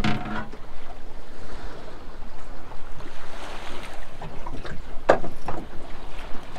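Wind and sea noise on an open boat at sea, a steady rushing haze, with a couple of sharp clicks from handling, one at the start and another about five seconds in.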